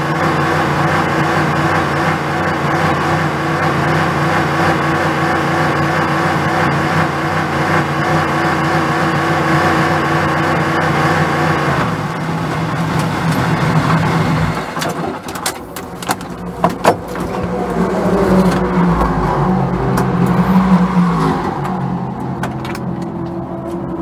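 Onboard sound of a Ligier JS P320 LMP3 car's Nissan V8 running at a steady, unchanging pitch while the car holds pit-lane speed. About halfway the engine note drops as the car brakes, a few sharp clunks follow, and the engine runs unevenly as the car comes to a stop.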